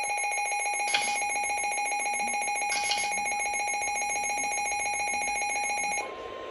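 Emergency Alert System two-tone attention signal: a steady, piercing alarm tone. About six seconds in it switches to a single, quieter steady tone.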